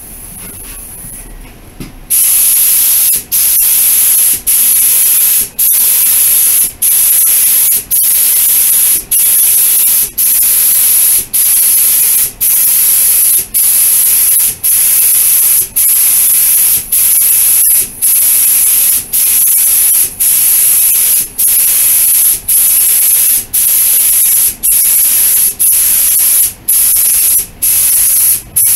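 Compressed-air paint spray gun spraying base-coat paint in a loud, steady hiss that starts about two seconds in and breaks briefly about once a second between passes. This is the first light coat of base coat being laid on a bumper.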